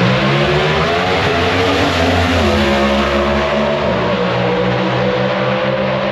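Pro Stock drag cars' naturally aspirated V8 engines at full throttle down the strip. The pitch climbs through each gear and drops at gear shifts about two and a half and four seconds in.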